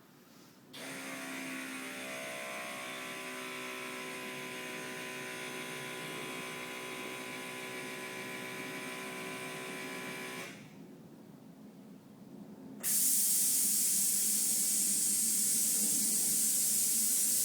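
Legend air suspension's small electric compressor running with a steady whine for about ten seconds as it pumps the motorcycle's suspension up, then stopping; a couple of seconds later air is let out with a loud steady hiss, lowering the suspension.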